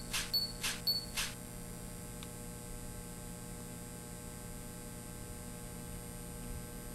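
Sci-fi holographic interface sound effects: three short electronic swishes, each with a brief high beep, in the first second and a half as the display panels pop up. A steady low electronic hum follows.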